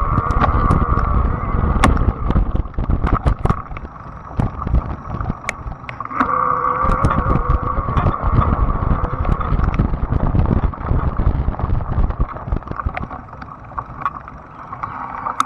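Fat-tire e-bike riding over a gravel path: rumble of wind and tyres, with many small pops and clicks of gravel under the tyres. A steady whine from the bike's drive grows stronger and fades as the ride goes on, loudest near the start and again about six seconds in.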